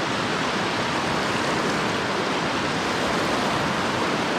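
Flowing river water rushing steadily over rocks.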